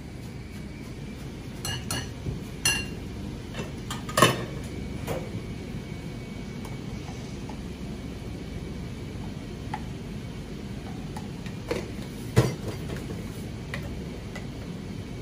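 Metal ladle and spoon clinking against a stainless stock pot, ceramic ramen bowls and a jar: scattered sharp clinks, the loudest about four seconds in and again near twelve seconds, over a steady low background hum.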